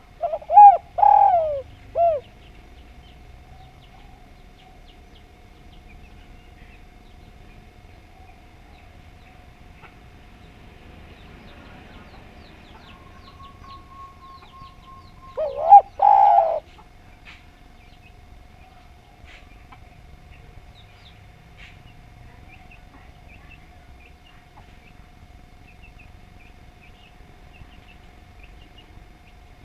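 Spotted dove (derkuku) cooing: a short multi-note phrase right at the start and a second phrase about halfway through, with a faint steady hum and a little background between.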